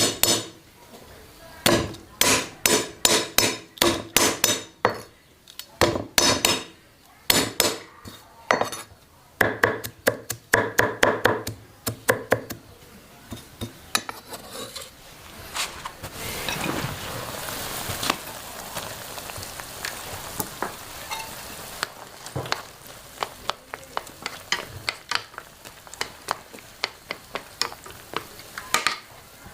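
A quick run of sharp knocks, about three a second, for the first twelve seconds or so. Then a steady hiss lasts several seconds, and scattered light clicks and clinks follow.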